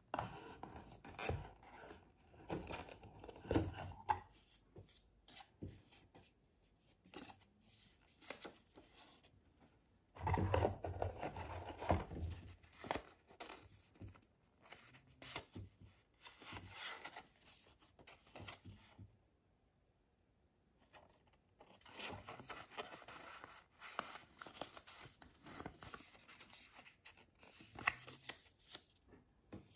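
Paper rustling and crinkling as a folded paper warranty envelope and the card inside it are handled, along with the handling of a cardboard watch box. The sound comes and goes irregularly, loudest about a third of the way in, with a brief pause about two-thirds through.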